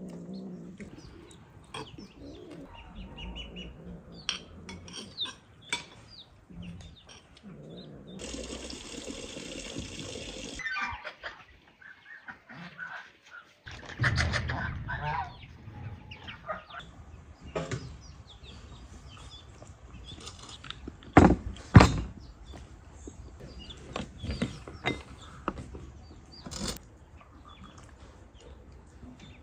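Scattered clinks and knocks of spoons on plates and dishes during a meal, with two sharp, louder knocks close together about two-thirds of the way through. A short stretch of hiss comes and goes about eight seconds in.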